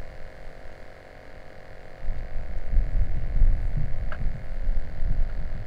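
A steady hum, joined about two seconds in by a low, uneven rumble of wind buffeting the microphone.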